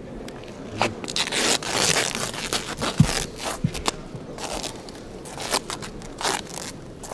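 Adhesive tape on a boxing glove's wrist being torn and peeled off by hand: a run of rasping rips and crinkles, loudest about one to two seconds in, with a couple of dull knocks about three seconds in.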